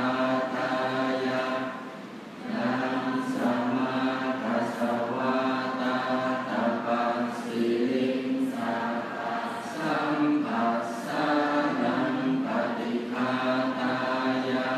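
Buddhist monks chanting the morning service (tham wat chao) together in unison, a group of voices on a steady, even recitation pitch, with a short pause for breath about two seconds in.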